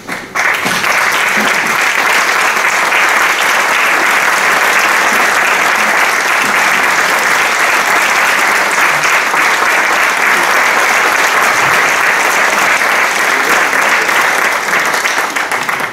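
Audience applauding, breaking out suddenly and holding steady before dying away near the end.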